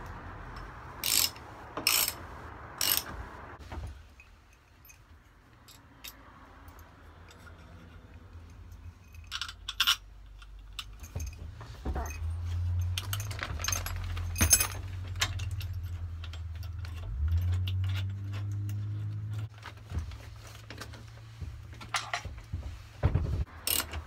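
Metal clinking of a wrench and loose bolts and hardware while a seat-belt mounting bolt is worked on, in scattered sharp clicks, with a low hum through the second half.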